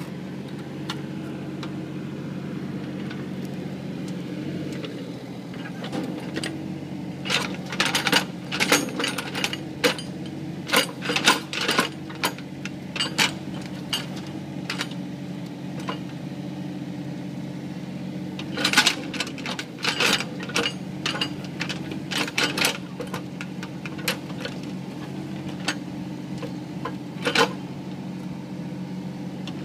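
Mini excavator engine running steadily while the machine works at a large tree stump, with two long runs of sharp knocks and clanks, about a third of the way in and again past the middle.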